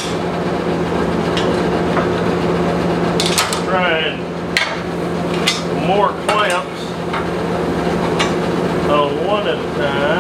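Sharp metallic clanks and clicks of locking C-clamps and blacksmith tongs knocking against steel plate and a steel worktable, with a few short scraping squeals, over a steady machine hum.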